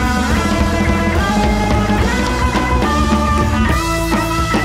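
Rock music played back from reel-to-reel tape on a 1976 Akai X-201D deck.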